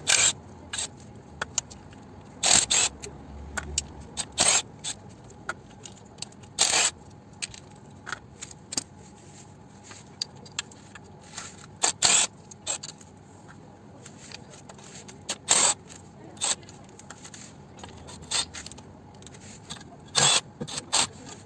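Sharp metallic clicks and clinks of hand tools working the oil sump bolts loose, about a dozen at irregular intervals of one to three seconds.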